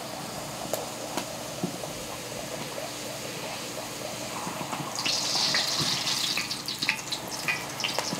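Corn tortilla sizzling in hot oil during a quick pass to soften it. The sizzle grows louder about five seconds in as the tongs move it, with short sharp crackles near the end.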